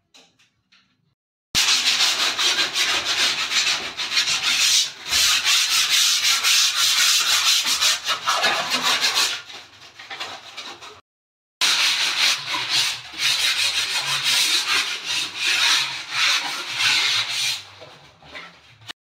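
Hand sanding of a filled plaster wall with a sanding block: quick back-and-forth scraping strokes. They start abruptly, stop briefly about eleven seconds in, then carry on.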